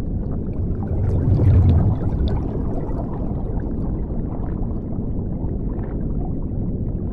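Underwater bubbles sound effect: a steady low wash of water noise that swells louder about a second in, with a burst of fizzing bubbles that dies down by about three seconds.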